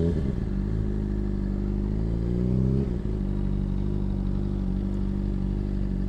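Sport motorcycle engine running at low speed. Its revs rise gently for about three seconds, then drop back and hold steady.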